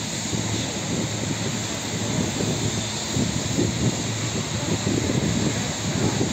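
Electric multiple-unit passenger train running past and beneath, giving a steady rumble of wheels on rails with a hiss above it.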